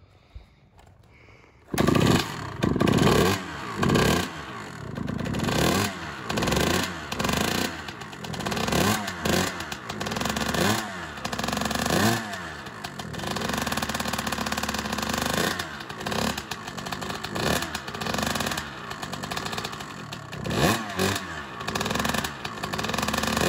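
Honda CR125 two-stroke single-cylinder dirt bike engine firing up about two seconds in on its first run after a top-end rebuild, then revved in repeated throttle blips about once a second with steadier stretches between. It sounds weird to the owner, who suspects a worn big-end bearing.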